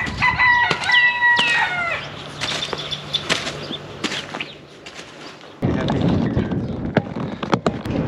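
A domestic fowl gives one long held call of about two seconds at the start, with shorter falling calls overlapping it, over a rake scraping through dry dirt. Just past halfway a louder rustling with sharp knocks takes over.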